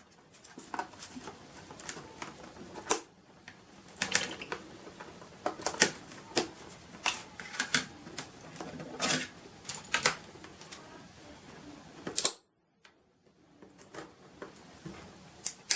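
Irregular clicks, taps and crinkles of a cardboard box and its packaging being handled and opened by hand, with a brief dead-silent gap about twelve seconds in.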